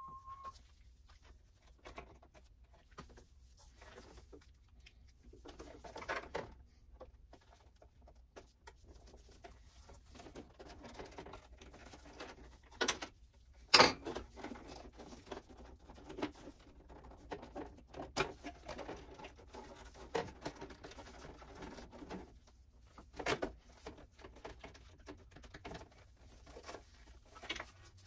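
Faint scattered clicks, light knocks and rustling of hands working at a Kawasaki Ninja ZX6R's plastic fairing panel and its fasteners, with a couple of sharper clicks near the middle.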